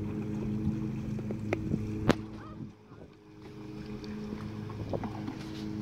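Motorboat engine running with a steady hum that nearly drops away for about a second midway, with a few sharp knocks, the loudest about two seconds in.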